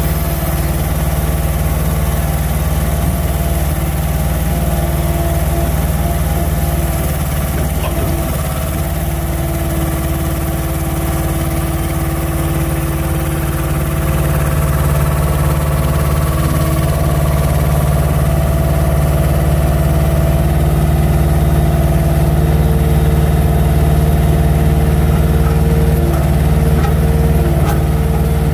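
Truck's diesel engine running steadily to power a loader crane's hydraulics, with whining tones over it that shift as the crane moves. It grows somewhat louder about halfway through.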